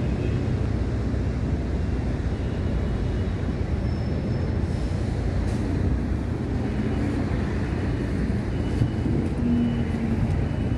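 Wind buffeting the microphone: a steady, fluctuating low rumble.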